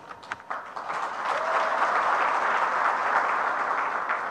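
Audience applauding, a dense patter of many hands clapping that builds about half a second in.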